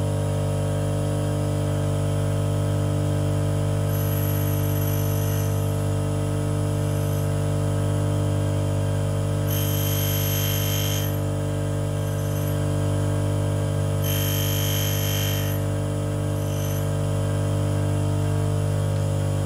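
Union tool and cutter grinder running with a steady motor hum while its wheel grinds the end cutting face of an endmill: three short spells of a high grinding hiss, about four, ten and fourteen seconds in, the last two the strongest. These are light passes on the primary relief, taking off less than a tenth of a millimetre.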